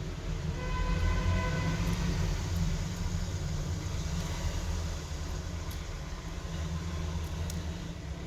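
Steady low rumble of background traffic, with a brief horn-like tone in the first two seconds.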